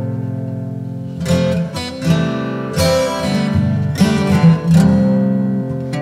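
Background music on acoustic guitar, with chords strummed and left to ring, a new chord about every second.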